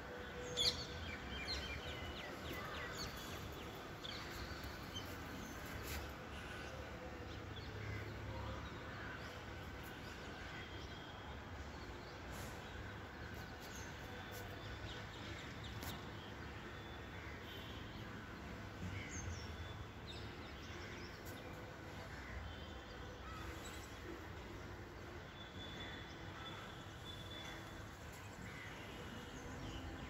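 Jungle babblers giving short, scattered chirping calls, busiest in the first few seconds, over a steady low background hum of outdoor noise.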